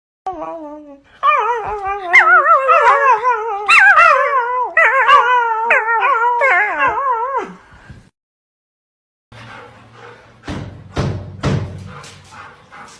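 Dog howling in long, wavering notes that slide downward, for about seven seconds. After a short pause come a few soft knocks and some rustling.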